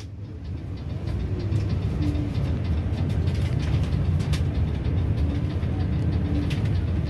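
Intercity coach under way: a steady low rumble of engine and road noise, fading in over the first second.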